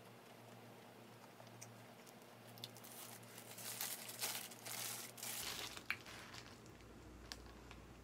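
A McDonald's paper burger wrapper crinkles and rustles as a double cheeseburger is unwrapped, in a run of bursts lasting about three seconds that begins a couple of seconds in.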